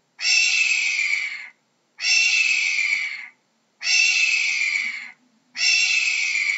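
A hawk calling: four long, harsh, rasping screams in steady succession, each about a second and a half long with a slight downward slide in pitch and a short pause between them.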